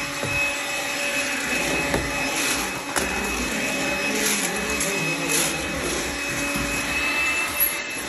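Makita stick vacuum cleaner running steadily with a high whine as its nozzle is pushed over a laminate floor.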